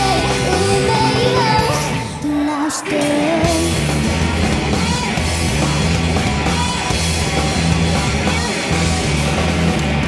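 Live rock band playing: electric guitars, bass and drum kit, with a female singer. The band drops out briefly about two seconds in, then comes back in full.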